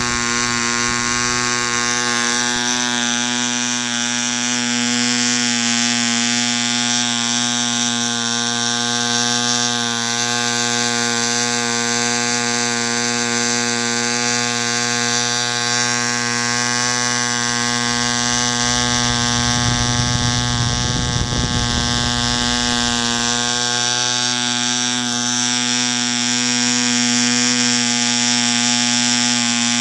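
A PAW 80 BR C ball-raced, Schnuerle-ported 0.8cc model diesel engine running steadily on a test stand and turning a propeller: an even, unchanging buzz.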